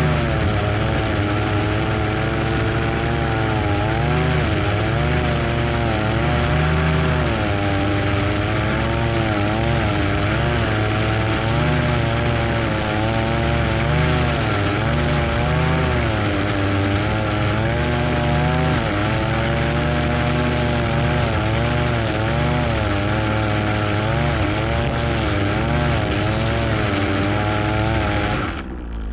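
Lawn mower engine running steadily, its pitch rising and falling slowly over and over, with a brief drop-out near the end.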